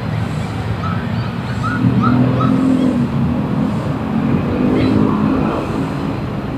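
Traffic noise dominated by a motor vehicle's engine running close by, growing louder from about two seconds in and easing off near the end.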